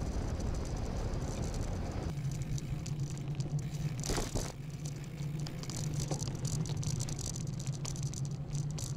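Loaded touring bicycle rolling along a paved path, its frame and luggage rattling with many small clicks. For the first two seconds wind rumbles on the microphone, then a steady low hum carries on, with a short rush of noise about four seconds in.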